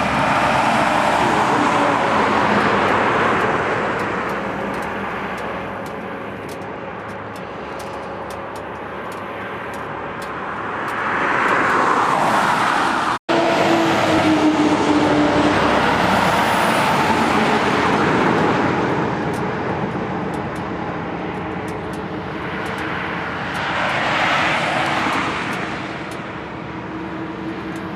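Rushing vehicle road noise with a faint steady engine hum underneath, swelling louder and fading back several times.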